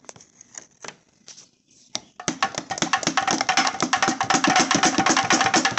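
Rapid, repeated knocking on a turbocharger housing, starting about two seconds in after a few light clicks, with a quick rattle from the wastegate flapper, which has play in it: a loose flapper that means the turbo is not making full boost.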